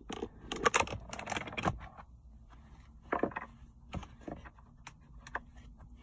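Light clicks and rattles of small plastic switch parts and clips being handled: a quick cluster in the first two seconds, then a few single clicks.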